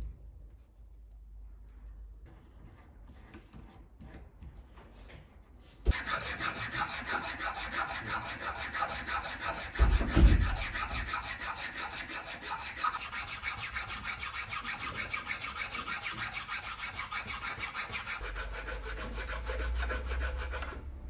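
Small metal hand file rasping along the edge of a 3D-printed plastic letter-opener blade in rapid, even back-and-forth strokes, starting about six seconds in after some quieter handling. A low thump about ten seconds in.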